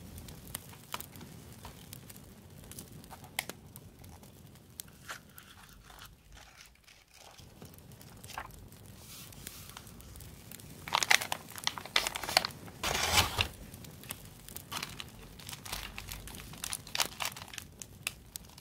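Paper and plastic handling: sticker sheets and paper stationery rustling and crinkling as they are shuffled and flipped by hand, in scattered short rustles and clicks, with louder crinkling in the middle.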